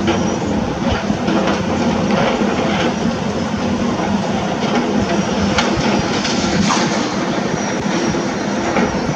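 Heavy construction machinery working: a diesel engine runs steadily under load, with scattered clanks and crunches of metal and material through it.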